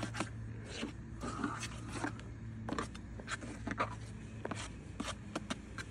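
Steel drywall knife scraping and clicking against a metal mud pan as setting-type joint compound is worked in the pan, in short irregular strokes over a steady low hum.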